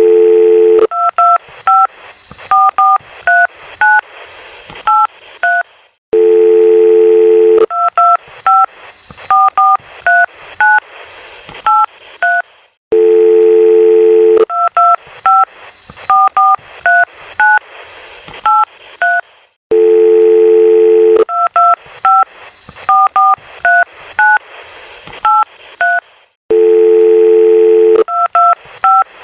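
Telephone dial tone followed by a quick run of touch-tone keypad beeps, about ten digits, each a short two-note beep with faint clicks between. The whole sequence loops, starting over with the dial tone about every seven seconds.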